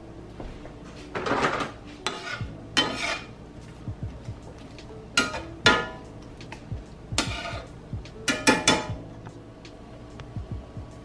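Kitchen clatter of pots, dishes and utensils being handled: a scattered series of knocks and clinks over soft background music.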